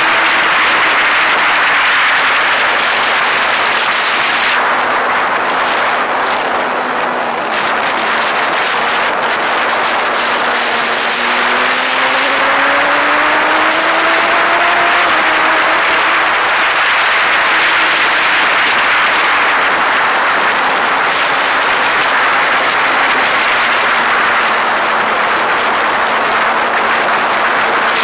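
A vehicle's engine running under a loud, steady rushing noise of travel, its pitch climbing about halfway through and settling back down.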